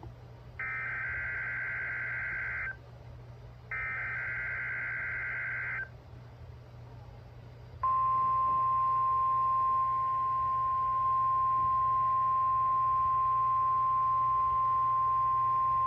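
NOAA Weather Radio Emergency Alert System alert heard through a radio receiver, over a constant low hum. First come two buzzing bursts of digital SAME header data tones, each about two seconds long. Nearly eight seconds in, the 1050 Hz warning alarm tone starts as one long steady tone, signalling a warning message, here a practice tornado warning.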